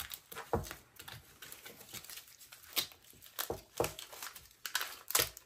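Wrapping around a coiled rubber hose crinkling and tearing as it is peeled off by hand, in a string of irregular rustles and crackles with a few sharper snaps.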